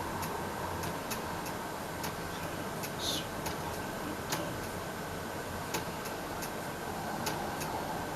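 Sharp, short ticks or clicks roughly once every second or so, over a steady room hiss and a faint hum.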